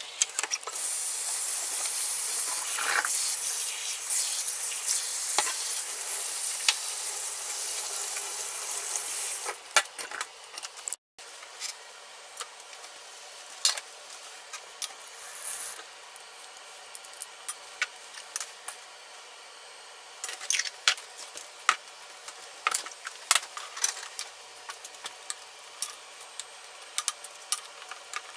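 Food sizzling loudly in a hot frying pan for about nine seconds. After a brief break the sizzling is quieter, with many light clicks and taps of a utensil against the pan.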